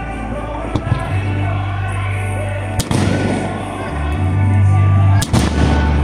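Aerial fireworks shells bursting with sharp bangs, the clearest one about three seconds in and a quick pair just past five seconds, over music with deep held bass notes.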